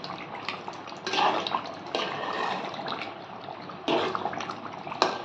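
Metal spoon stirring thick duck curry in a metal pot: about four wet, sloshing strokes with small clicks of the spoon against the pot, over a steady hiss.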